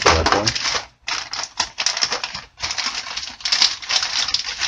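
Rapid, irregular clicking and rustling as a plastic 110 punch-down block with its wired C-clips is handled close to the microphone.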